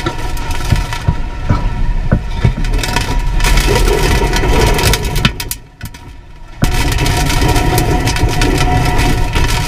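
Hurricane wind and driving rain blowing hard, with a few sharp knocks from flying debris in the first three seconds. The noise drops away for about a second halfway through, then comes back suddenly at full strength.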